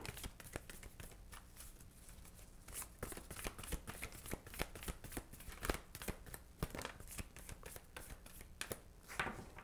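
A deck of oracle cards being shuffled by hand: a continuous, irregular run of soft card flicks and taps.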